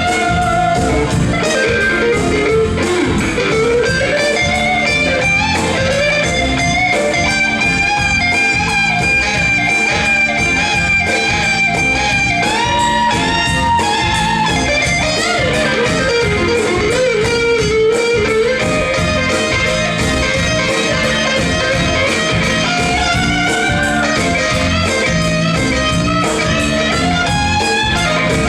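Live blues band playing an instrumental break: an electric guitar solo with long, bending notes over a steady beat.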